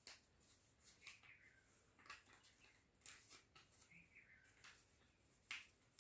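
Faint, scattered rustles and light clicks of a sheet of paper being handled and creased while folding a paper aeroplane, a little louder about five and a half seconds in.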